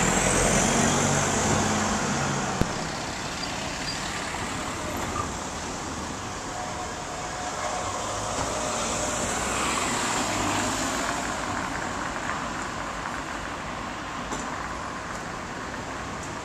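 Road traffic on a town street: cars and a van driving past, loudest in the first couple of seconds as one goes by close, with another swell about ten seconds in.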